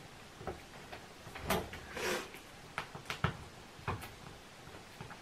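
Light knocks and clicks of things being handled on a kitchen counter, with a short rustle about two seconds in.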